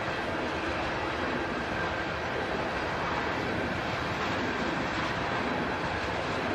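Norfolk Southern train rolling past, a steady rumble of its cars on the rails.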